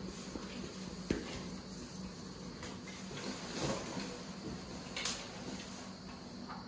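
Faint scattered knocks and rustling over a steady low hum.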